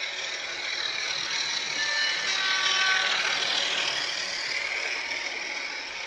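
OO/HO gauge model train running along the track, a steady whirring rattle of motor and wheels on rail that grows louder as the train passes about halfway through, then fades as it moves away.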